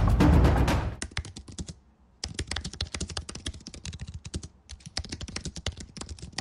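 Rapid typing on a computer keyboard: a dense run of keystroke clicks with two short pauses. It comes in after a loud music sting that ends about a second in.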